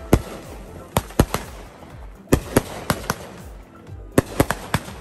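Consumer fireworks going off: about a dozen sharp bangs and pops at irregular spacing, several coming in quick clusters of two to four.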